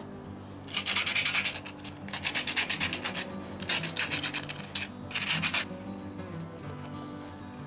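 Rapid back-and-forth hand rubbing with an abrasive, in four bursts of quick strokes, the first three about a second each and the last shorter.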